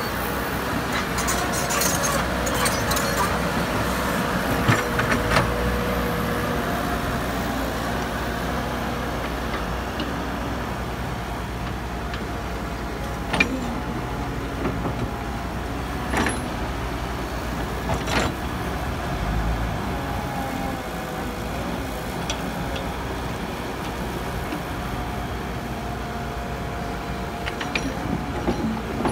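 Caterpillar E120B hydraulic excavator running steadily under load, its diesel engine humming with a steady hydraulic whine as it swings and dumps soil. A few sharp knocks come midway as bucketloads of earth and clods drop into the dump truck's steel bed.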